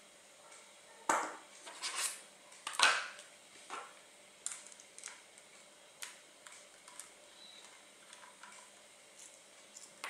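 Small metal parts clinking and clicking as a laptop hard-drive bracket and its screws are handled with a screwdriver: a few louder clatters in the first three seconds, then lighter, scattered ticks.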